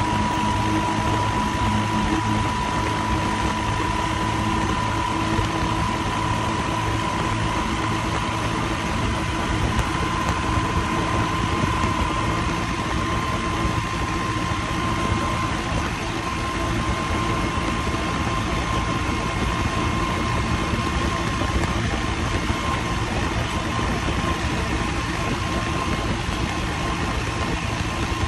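Swaraj 855 tractor's three-cylinder diesel, turbocharged and with a modified fuel-injection pump, running steadily at high road speed, with a steady high whine over the engine note.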